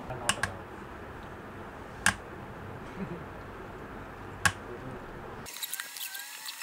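A few sharp, isolated clicks over shop room tone as a DJI Mavic Pro's plastic body and arms are handled and worked on with a screwdriver. About five and a half seconds in, the room sound cuts out and faint background music begins.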